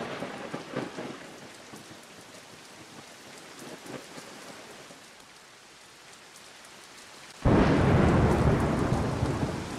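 Thunderstorm: steady rain hiss with faint crackles of thunder, dying down. About seven and a half seconds in, a sudden loud thunderclap breaks and slowly fades.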